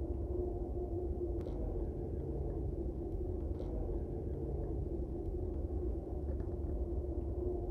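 A steady low rumble with a faint steady hum over it, and a couple of faint clicks.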